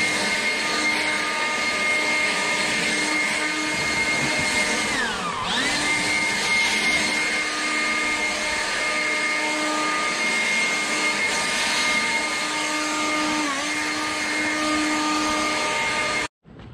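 Dewalt 20V brushless cordless leaf blower running at full speed with a steady whine and rush of air. It is throttled down and back up about five seconds in, dips briefly again later, and shuts off suddenly near the end.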